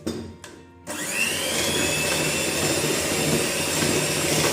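Electric mixer switching on about a second in, its motor whine rising quickly and then running steadily as it beats the cookie dough.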